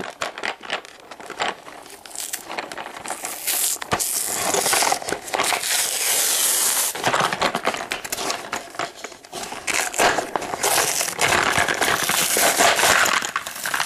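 Plastic and cardboard toy packaging being torn open by hand: irregular crinkling, crackling and tearing with small clicks, in two heavier spells, the second near the end.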